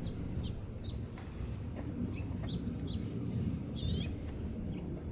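A small bird chirping: a series of short high chirps, with a longer, fuller call about four seconds in, over a steady low background rumble.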